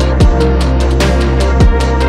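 Electronic background music with a steady deep bass. Two heavy kick drums drop sharply in pitch, one near the start and one near the end, with a sharp snare-like hit between them.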